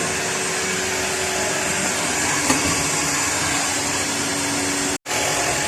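Electric hot-air blower running steadily with a whooshing rush of air and a steady motor hum, drying a freshly patched ceiling. The sound cuts out for a split second about five seconds in.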